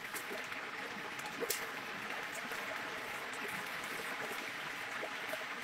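Battered chicken pieces deep-frying in a vat of hot oil, a steady sizzle and crackle of bubbling oil, with a single sharp click about one and a half seconds in.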